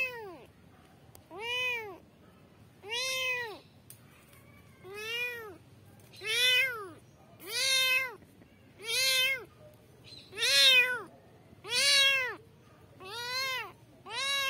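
A young kitten meowing over and over, calling for its mother: about ten loud meows at a steady pace, each rising and then falling in pitch.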